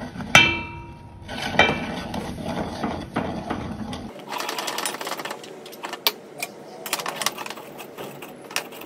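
A metal spatula stirring flour into hot water in a metal pan: two ringing clangs against the pan in the first two seconds, then a fast run of scraping and knocking as the stiffening flour mixture is worked.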